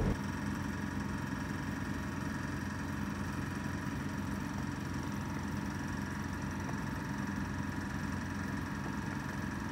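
Pot of meat broth boiling hard on the stove under a steady, even hum with a faint whine.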